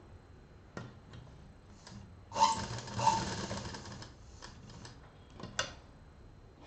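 Black domestic sewing machine stitching a seam in cotton fabric in a short run of about a second and a half, beginning a little over two seconds in, with two spurts. This is the double stitching run over the seam end to lock it. A few separate sharp clicks from the machine and the fabric handling come before and after the run.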